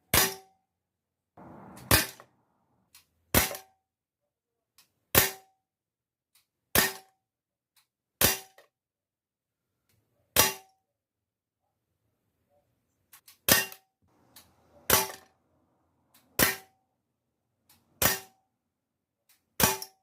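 Airsoft Sig Sauer P226 pistol firing single shots: about a dozen sharp pops spaced a second and a half to two seconds apart, each with a brief ringing note. A short hiss comes just before the second shot.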